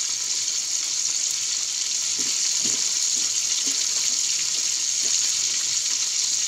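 Chicken frying in hot oil: a steady sizzle.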